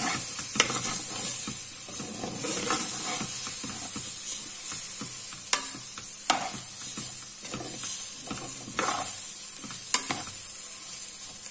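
Rice and vegetables frying and sizzling as they are stirred with a metal spoon in an aluminium pressure cooker, the spoon scraping through the rice and clinking sharply against the pot a few times.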